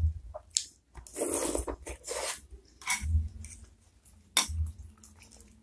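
Close-up eating sounds of a mouthful of beef meatball soup being chewed, with a sharp click of a metal spoon against the ceramic bowl a little past four seconds in.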